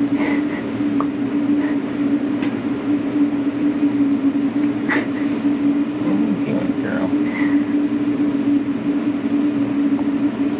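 A steady mechanical hum at one constant low pitch, with a few faint short chirps and clicks over it.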